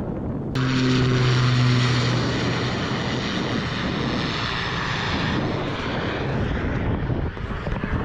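Light propeller airplane running its engine, coming in abruptly about half a second in: a steady low engine hum for a couple of seconds under a broad rushing propeller noise that carries on.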